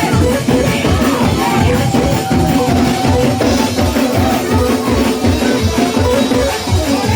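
Fast, loud live church praise music: a drum kit keeping a quick, steady beat of about four to five hits a second, with held keyboard or organ notes over it.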